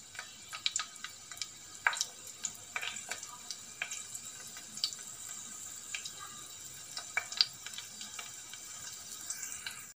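Hot oil sizzling with irregular small pops and crackles as dry red chillies, curry leaves and tempering spices fry in it: a tadka (popu) being cooked.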